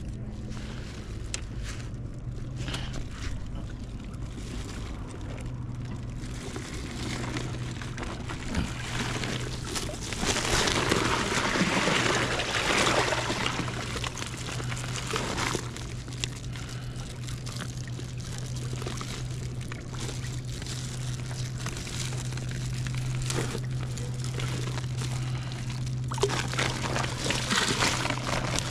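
Seawater sloshing and washing among jetty rocks, swelling louder about ten seconds in and again near the end, over a steady low hum.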